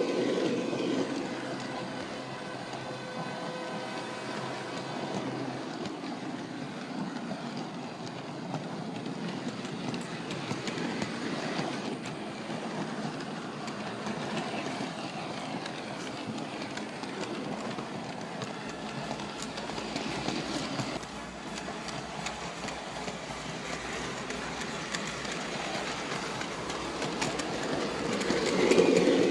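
Miniature railway train running along the track, its wheels clicking over the rail joints. The sound swells near the start and again near the end.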